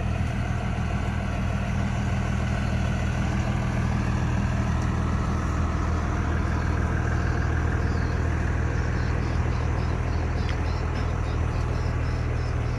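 Vehicle engine running steadily with a low, even hum.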